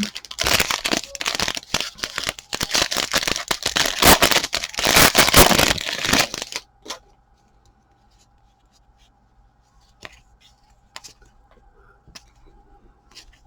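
A Donruss football trading card pack's wrapper being torn open and crinkled for about the first seven seconds, then a few faint clicks.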